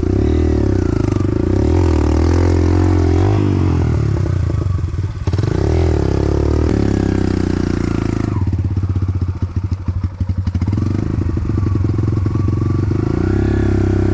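Enduro dirt bike engine revving up and down under load as the bike works through a deep rut. It drops to a choppy low-rev run about eight seconds in, then revs up again near the end.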